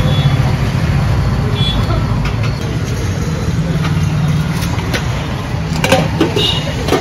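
An engine running steadily, a low hum under general street noise, with a few sharp clatters near the end.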